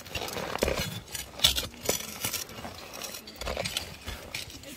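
Steel pry bar levering up a slab of pegmatite ledge, with irregular metallic clinks and knocks against the rock and the sharpest knock about a second and a half in.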